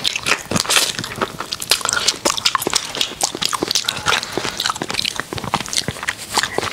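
Close-miked biting and chewing of a small crunchy piece of food: a dense, irregular run of sharp crackles and clicks.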